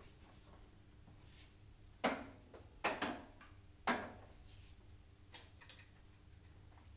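Four knocks between about two and four seconds in as a Honda HRE370 electric lawnmower is set down on a work table and its attached handle is moved, with one fainter knock a little later.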